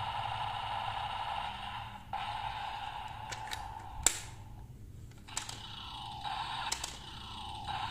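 Electronic sound effects from the DX Magnum Shooter 40X toy gun's built-in speaker: a steady electronic tone for about two seconds, a sharp click about four seconds in, then falling, sweeping effects near the end.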